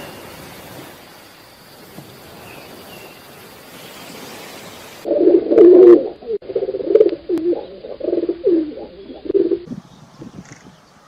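A bird calling in a run of short, low, repeated notes that begins about halfway through and stops a little before the end, after a stretch of faint hiss.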